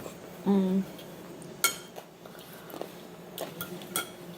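Eating utensils clinking against dishes: two sharp, ringing clinks, about a second and a half in and again near the end, with a few lighter taps between. A short hummed sound comes just before the first clink.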